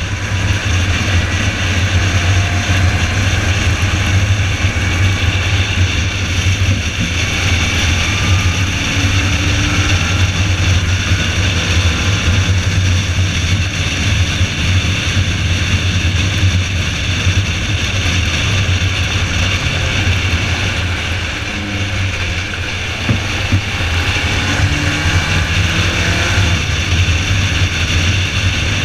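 Car engine running hard around a racetrack, a loud steady drone with an even hiss over it and a few slight shifts in pitch.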